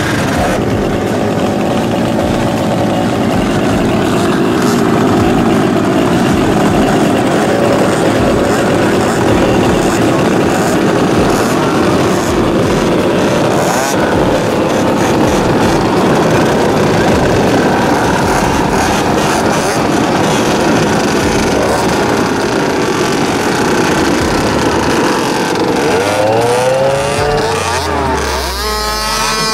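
50cc mini ATV engines running at race speed, a steady buzz from several quads together. Near the end one quad passes close, its engine pitch sweeping and then dropping as it goes by.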